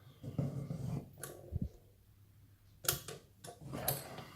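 Handling of a just-picked-open lock and picking tools: a few sharp clicks scattered through, with some low rustle early on.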